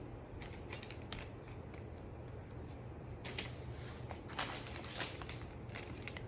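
Handling noises from a clear plastic zip bag holding an instruction manual: short crinkles and rustles, a few in the first second and a denser run in the second half as the bag is picked up. A faint steady low hum runs underneath.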